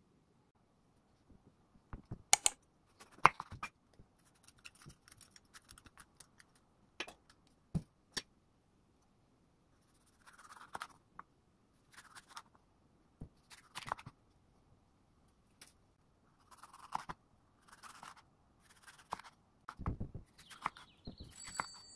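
Kitchen handling sounds during food prep: a few sharp clicks and knocks early on, then short soft scraping strokes every second or two and a low thump near the end.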